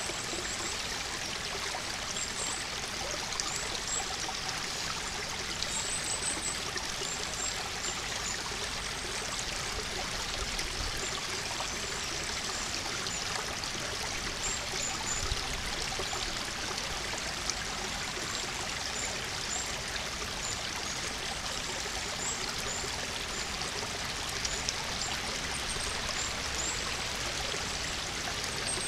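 Shallow stream running over stones, a steady rush of water, with faint short high-pitched chirps now and then above it.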